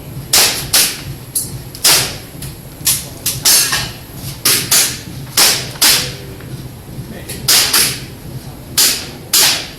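Airsoft pistol firing, mostly in quick pairs of sharp shots, about a dozen and a half shots in all, as a shooter double-taps a series of targets on a practical shooting course.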